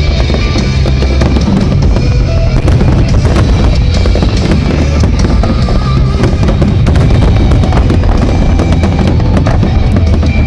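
Fireworks bursting and crackling in quick succession over loud music with drums.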